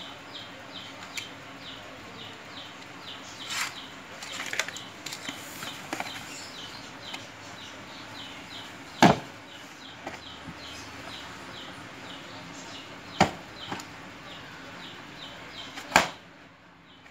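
Three sharp knocks, about four and three seconds apart, as holes are punched through the floor of a plastic box with a hand tool. Steady short chirping, about three a second, runs underneath.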